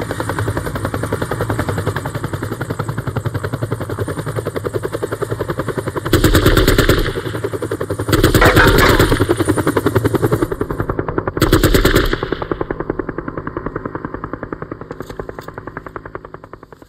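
Helicopter rotor chopping at a fast, even beat, broken by three loud bursts of machine-gun fire about six, eight and eleven seconds in. After the last burst the rotor sound fades away steadily.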